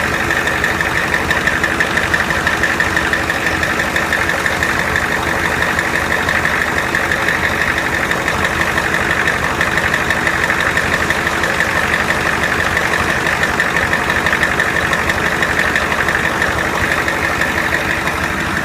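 Engine idling steadily, running without belt squeal now that the squealing belt has been dealt with.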